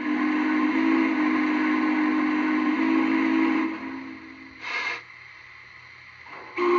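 Lionel Legacy Berkshire model steam locomotive's onboard sound system playing its steam chime whistle, several tones sounding together with a hiss of steam. A long blast of about three and a half seconds, a short toot about a second later, then another blast starting near the end.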